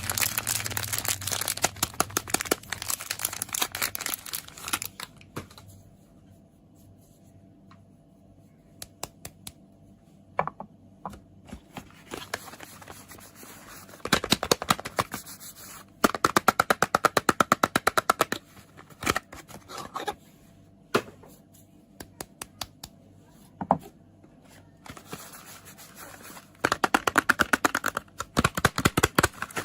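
Rapid fingernail tapping and crinkling on soap packaging, in quick runs of sharp taps that come in three longer bursts, at the start, in the middle and near the end, with a few single taps between.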